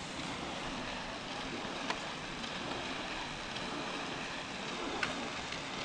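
Steady rushing outdoor noise heard from a moving chairlift, with two faint clicks about two and five seconds in.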